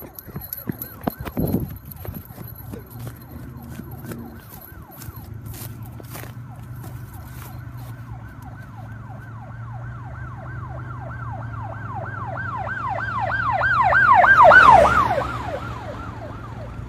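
Electronic yelp siren of an emergency vehicle, its pitch sweeping up and down about four times a second, growing steadily louder to a peak near the end and then fading. A few sharp clicks and a thump come in the first seconds.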